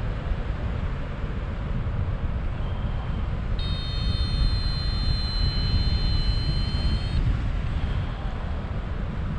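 Airflow buffeting the microphone as a paraglider glides, a steady low rush. About three and a half seconds in, a steady high tone joins it for about three and a half seconds, then cuts off.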